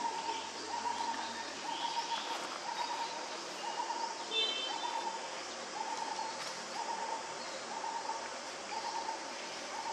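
A bird repeating a single hooting note over and over, about three notes every two seconds. A brief high squeak sounds once, about four seconds in.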